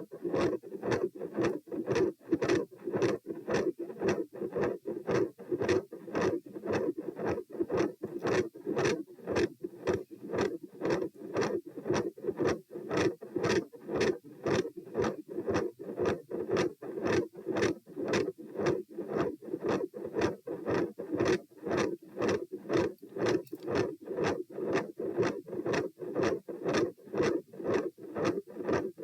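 Heartbeat heard through a stethoscope over the pulmonic area: a steady, regular run of lub-dub beats with a loud second heart sound (S2) and a mid-systolic murmur, over a constant low hum.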